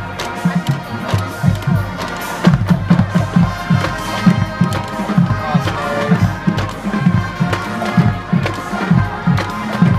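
Marching band playing: held brass chords over a drumline, the bass drums beating out a quick rhythm with sharp snare and cymbal hits.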